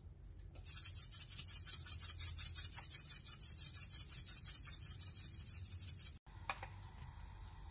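A shaker bottle shaken rapidly over a pot, giving a fast, scratchy rattle of about eight to ten strokes a second. It cuts off suddenly near the end.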